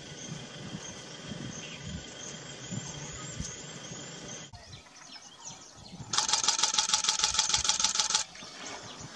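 Outdoor ambience: a low, uneven rumble with faint repeated bird chirps. About six seconds in, after a short lull, a loud, rhythmic buzzing starts and lasts about two seconds.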